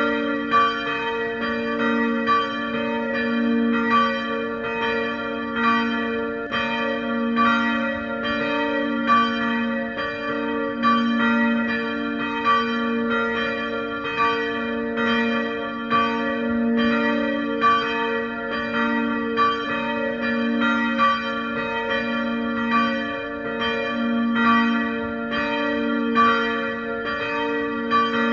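Two church bells swinging and ringing together in a steady run of strikes. Their humming tones overlap and ring on without a break between strokes.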